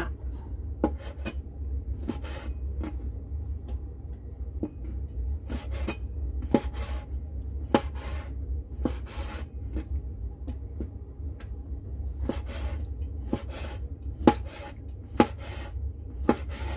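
Kitchen knife cutting squid on a wooden chopping board: irregular sharp knocks of the blade striking the board, about one a second, over a steady low hum.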